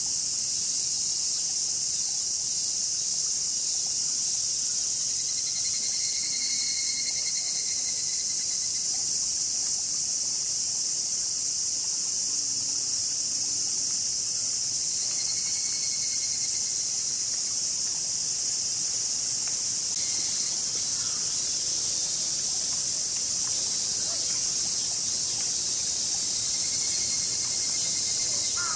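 Dense, steady, high-pitched chorus of summer cicadas. A fainter, lower call swells and fades three times.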